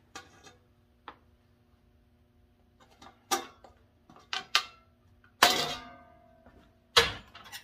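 Sharp metallic clicks and clanks as tin snips and an 18-gauge copper sheet are handled. There are a few lighter clicks, then two louder clanks about five and a half and seven seconds in, the first ringing briefly.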